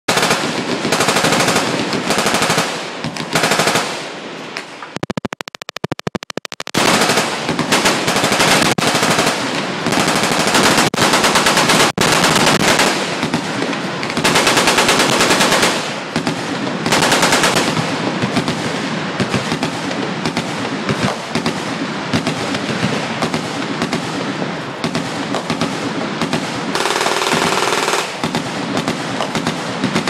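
Machine guns firing on a firing line: long, nearly unbroken bursts of automatic fire, with a stretch of very rapid, closely packed shots about five seconds in.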